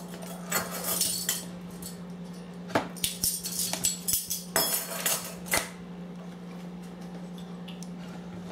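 Metal measuring spoon clinking and tapping against the baking powder tin and the mixing bowl as a teaspoon of baking powder is scooped and tipped in. A few light clinks come near the start, then a busier run of clinks and taps in the middle, over a steady low hum.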